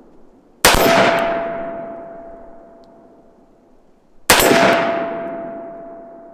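Two pistol shots from an FK PSD in 7.5 FK, fired deliberately about three and a half seconds apart for a slow-fire accuracy group. Each shot rolls off in a long echo, with a steady ringing tone hanging under the decay.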